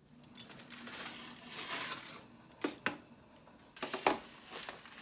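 Rustling and crinkling with a few sharp clicks, as of things being handled.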